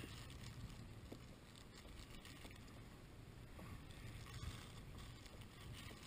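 Near silence: faint wind and water noise around a kayak, with a few soft clicks as a stopwatch in a clear plastic bag is handled.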